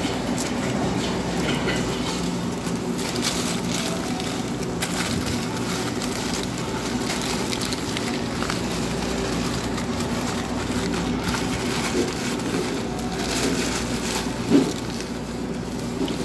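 Paper sandwich wrapper crinkling and rustling as it is handled and folded open, over a steady background hum. One short, sharp thump near the end.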